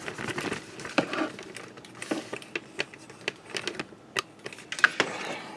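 Handling noise: irregular light clicks and taps, with a few sharper ones, from the mini mill's table area being handled.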